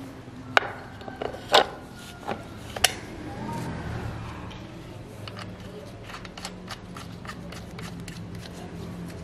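Parts of a Husqvarna chainsaw being handled and fitted: three sharp plastic-and-metal knocks as the clutch cover is set over the sprocket and bar, then a run of small light clicks as the bar nut on the cover is fitted.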